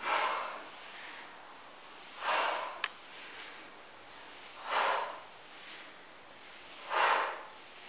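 A woman's forceful exhalations, four of them about two seconds apart, keeping time with weighted seated torso twists. There is a small sharp click just before three seconds in.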